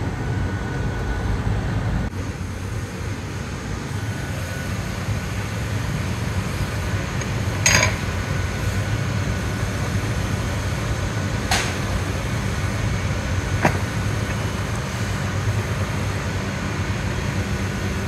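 Steady low roar of a glassblowing shop's glory-hole burner and floor fans. A few sharp metal clinks from the glassblower's tweezers cut across it: a loud one about halfway through and two lighter ones a few seconds later.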